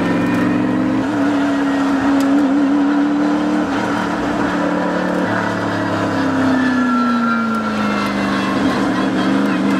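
Bentley Continental GT3 race car's twin-turbo V8 running under steady load through a corner. Its pitch drops from about six seconds in as the car eases off, then holds.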